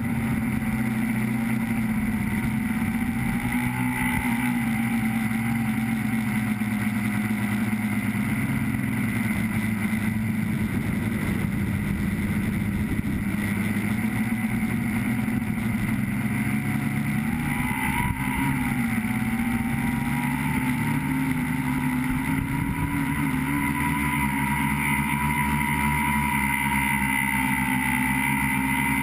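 Tricopter's electric motors and propellers buzzing steadily, heard from the camera on board, the pitch drifting up and down a little with a brief rise about two-thirds of the way through.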